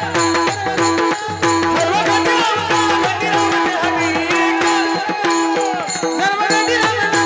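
Varkari bhajan music: pakhawaj (mridang) drumming in a quick, even rhythm, with small hand cymbals ringing and a sung melody over a steady held note.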